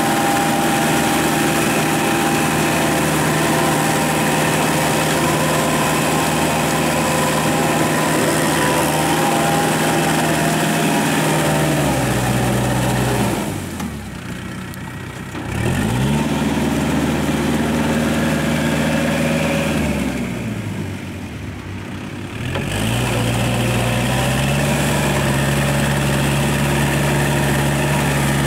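Kubota L5018 tractor's diesel engine running steadily under load while it drives a rotary tiller through the mud. Twice in the middle the engine speed falls away and then climbs back up.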